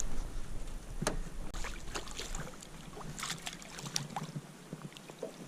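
Scattered small clicks and knocks of a zander and a landing net being handled in a boat, with one sharper knock about a second in.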